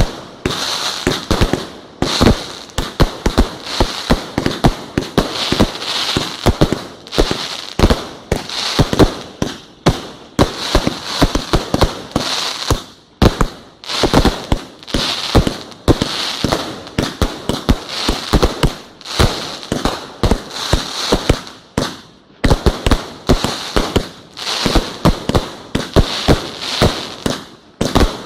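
Professional fireworks display: a rapid, continuous barrage of bangs from bursting shells, several a second.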